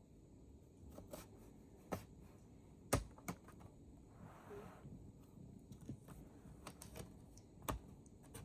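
A few scattered light clicks and taps from handling a laptop's bottom cover and its screws while it is being opened, the sharpest about three seconds in and near the end.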